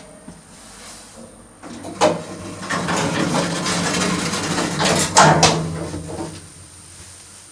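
An old lift clunking and rattling: a sharp clunk about two seconds in, then several seconds of rattling, mechanical noise with a second loud clunk, before it settles.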